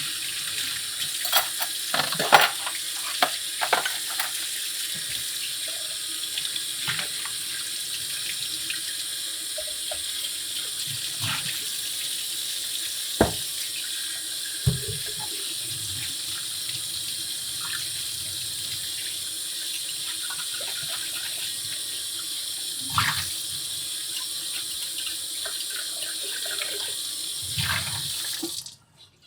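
Water running steadily from a tap into a sink, with scattered knocks and clinks, until it is shut off abruptly near the end.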